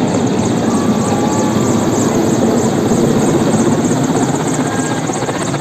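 Helicopter rotor running loud and steady, with a fast blade chop.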